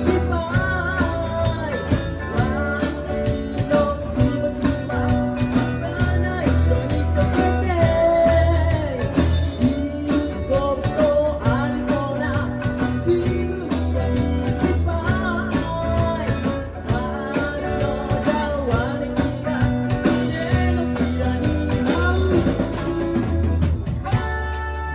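A live rock band playing a song: electric guitar, bass and drum kit keep a steady beat, with a singer's voice over them. Near the end the drums stop and the guitar carries on alone.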